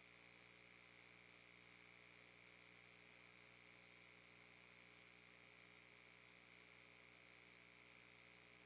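Near silence: a faint, steady electrical hum and hiss.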